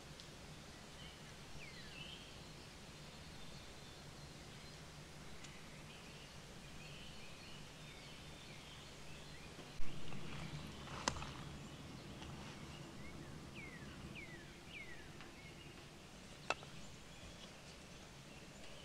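Quiet woodland ambience with a few short, falling bird calls, three of them in quick succession after the middle. A single sharp knock about ten seconds in, the loudest sound, followed by two lighter clicks.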